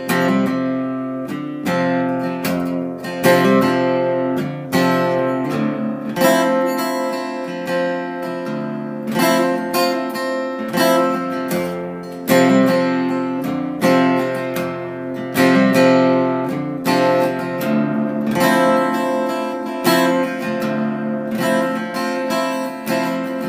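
Acoustic guitar strummed in a steady rhythm, an instrumental passage of chords with no singing.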